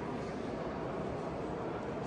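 Steady background noise: an even, low rumble and hiss with no distinct events.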